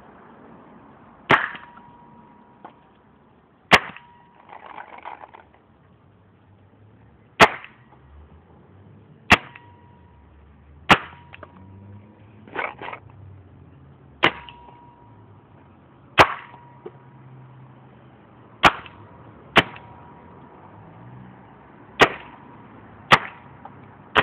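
VL Triton II paintball gun firing single shots, about a dozen sharp pops spaced one to four seconds apart, two of them in quick succession about halfway through.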